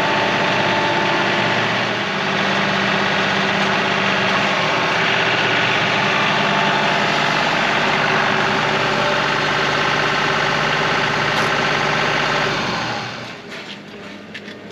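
Compact tractor engine running steadily. Near the end it drops away, leaving faint clicks and scrapes.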